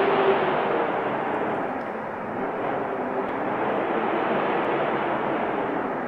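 Snowstorm wind blowing: a dense, even rushing hiss that eases slightly about two seconds in and then swells a little again.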